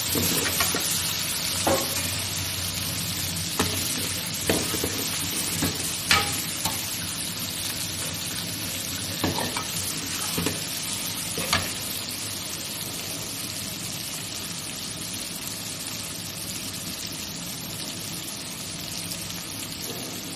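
Tomatoes, shallots, garlic and green chillies sizzling in hot oil in a large black kadai, stirred with a metal ladle that clinks and scrapes against the pan about eight times in the first twelve seconds. The sizzle stays steady and eases a little toward the end.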